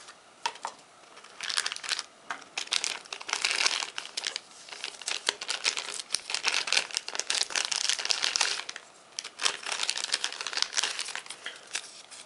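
Thin clear plastic bag crinkling and rustling in repeated bursts as a folding knife is worked out of it.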